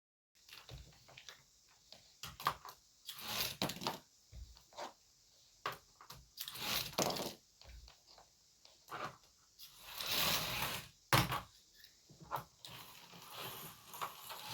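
Irregular clicks and knocks with several short scraping, rustling bursts, from plastic toy parts being handled.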